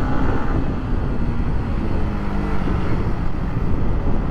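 Yamaha motorcycle running at road speed, its engine note under a steady rumble of wind on the rider's microphone.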